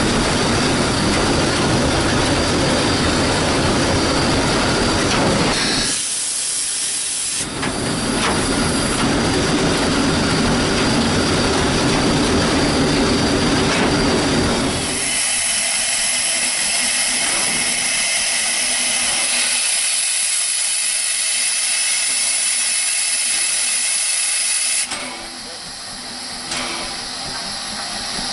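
Cab noise of the moving steam locomotive S.P.L.CO. #28: a steady, dense rumble and clatter of running gear and wheels on the rails. About halfway through the low rumble falls away and a steady hiss of steam takes over.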